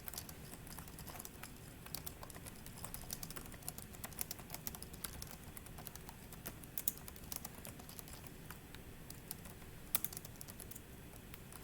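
Typing on a computer keyboard: a run of irregular light key clicks, with a louder cluster about ten seconds in.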